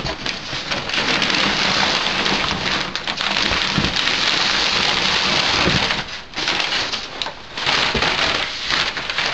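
Crumpled brown kraft packing paper crinkling and rustling as it is pulled out of a cardboard shipping box. The noise is loud and unbroken for about six seconds, then comes in a few shorter spells with brief pauses between them.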